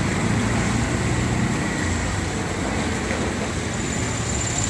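Steady street traffic: the continuous rumble of road vehicles running past, with a thin high tone coming in near the end.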